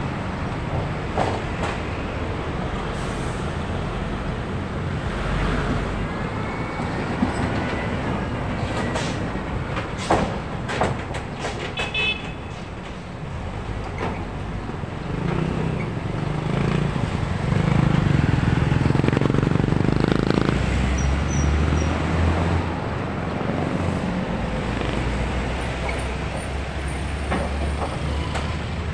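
Road traffic passing close by: cars, a motorcycle tricycle, vans and trucks with their engines running. A heavier engine grows louder a little past halfway, and a nearby engine keeps up a low steady drone through the last third.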